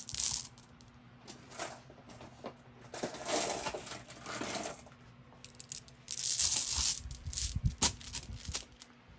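Flat glass marbles clinking and rattling against each other as they are dropped into the foot of a sock and shaken down, in several bursts with a few sharp clicks near the end.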